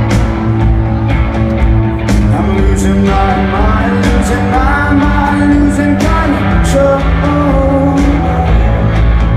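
Rock band playing live through a concert sound system, recorded from the crowd: heavy, loud bass, drums with cymbal hits, guitar and a singing voice.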